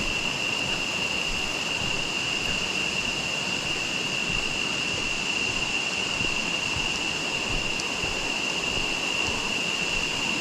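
Steady rushing of a jungle river's flowing water, with a steady high-pitched tone held over it.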